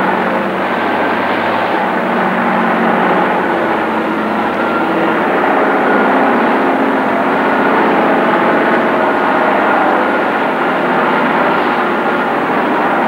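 Tatra 813 heavy off-road truck's engine running with a steady drone as the truck drives through mud and grass.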